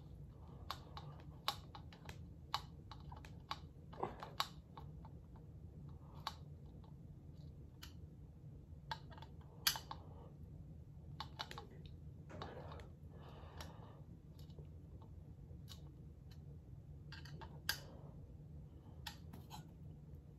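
Irregular small clicks and short scrapes of a screw being turned in by hand with a screwdriver into a prop's support pole, over a faint steady low hum.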